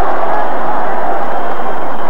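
Steady murmur of a large stadium crowd, heard through old television broadcast audio.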